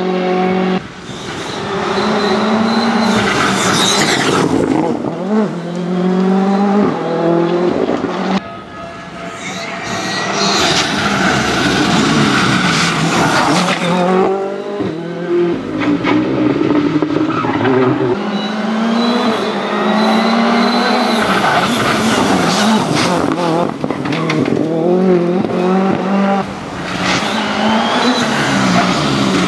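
Ford Fiesta R5 rally car's turbocharged four-cylinder engine revving hard, its pitch climbing and dropping back through quick gearshifts as it drives past at speed. Several passes follow one after another, with some tyre squeal.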